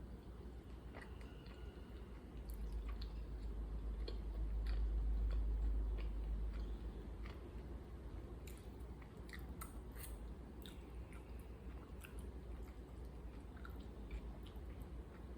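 A person chewing tteokbokki (chewy rice cakes in sauce) close to the microphone, with scattered small mouth clicks and smacks. A low rumble swells up for a few seconds in the middle, then fades back.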